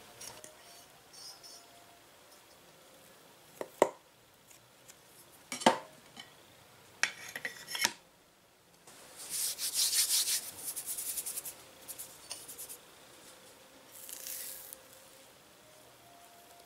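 Two sharp knocks and a few clicks of small things set down on a hard tabletop, then a dry, crackly rustle lasting about three seconds, with a shorter one near the end, as fingers rub flour onto a small glass board.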